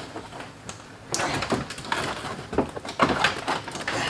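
Floor carpet being pulled and dragged out of a stripped car interior: scraping and rustling with a few knocks, starting about a second in.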